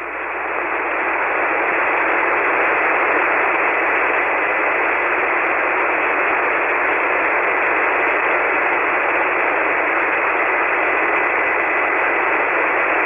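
Hiss of an amateur radio transceiver receiving single-sideband on an empty channel in the 40-metre band, with a faint steady whistle in the noise. It swells up over the first second and then holds level.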